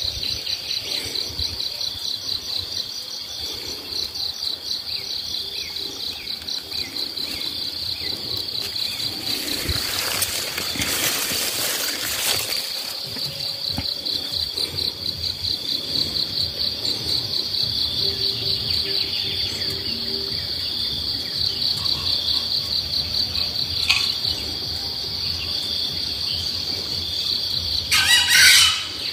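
Insects trilling steadily in a high, rapidly pulsing chorus. A single sharp click comes about 24 seconds in, and a short, loud burst near the end.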